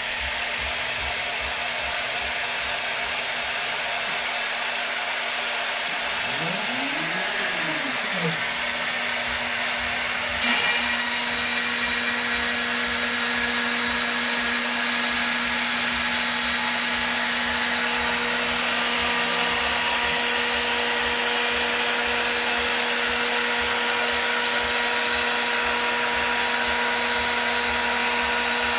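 CNC router spindle running at a steady high speed, a continuous whine with a hiss. About seven seconds in, a tone whines up and then down in pitch as the stepper motors drive an axis. About ten seconds in, the sound steps up louder and harsher.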